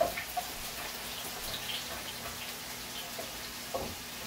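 Onion, shallot and pepper frying in oil in a frying pan, a steady sizzle, with a spatula clicking against the pan a few times, sharpest right at the start and again near the end.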